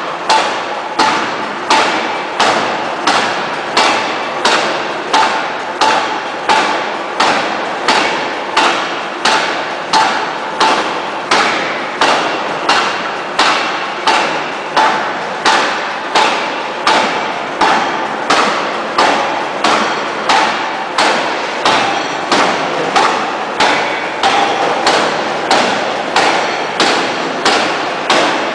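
Fully hydraulic open-die forging hammer pounding a red-hot steel shaft forging on the anvil, in a steady run of heavy blows at about three every two seconds.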